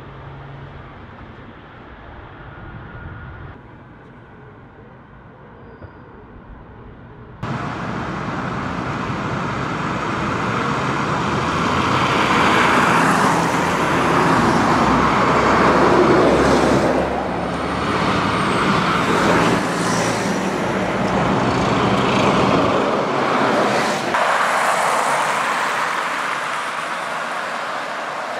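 Diesel buses and coaches driving along a road in traffic: quieter for the first several seconds, then much louder from about a quarter of the way in as buses pass close, with the loudest passing about halfway through.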